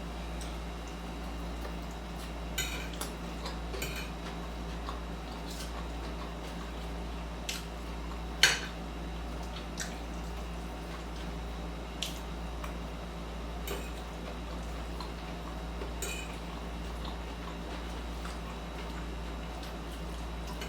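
Eating utensil clicking and scraping against the dish while picking through a jerk chicken salad, in scattered short clicks with one sharper clack about eight seconds in. A steady low hum runs underneath.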